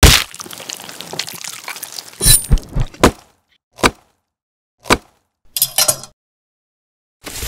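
Added stop-motion cooking sound effects of a kitchen knife cutting on a wooden cutting board: one loud hit at the start, then a cluster of sharp cracks and knocks, two single chops about a second apart, a crackly crunch, and a last hit near the end.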